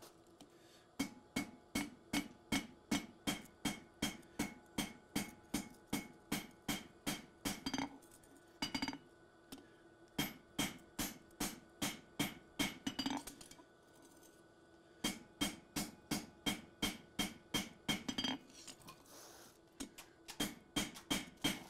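Cross-peen hammer blows on hot steel against an anvil, a steady rhythm of about three strikes a second, each leaving a brief metallic ring from the anvil, with a few short pauses between runs. The blows are drawing down the heel (choil) of a forged Bowie knife blade.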